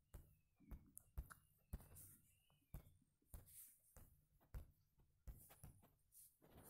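Near silence broken by a dozen or so faint, irregular taps and knocks.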